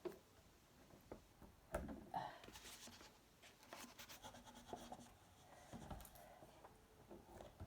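Faint rubbing and scratching of a glue stick and small paper squares being pressed onto a paper-covered plastic bottle, with light taps and a soft knock about two seconds in.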